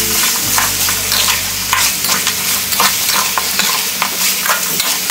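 Duck pieces sizzling as they are stir-fried in a steel wok, with a metal spatula repeatedly scraping and knocking against the pan.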